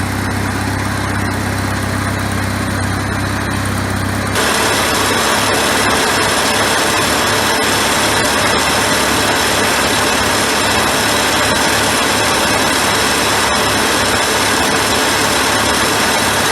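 Farmall Super A tractor's four-cylinder gasoline engine running steadily while being warmed up. About four seconds in it abruptly becomes louder and harsher, then runs on steadily.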